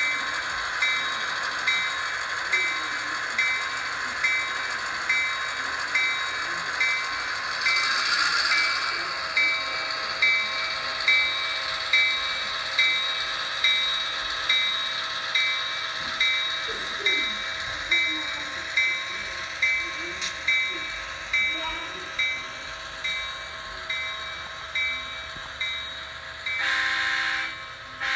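Soundtraxx Econami sound decoder in an HO scale SD38 model locomotive, playing diesel locomotive sounds through its small onboard speaker. The bell rings steadily, a little over once a second, over the running engine's drone, and about a second-long horn blast sounds near the end.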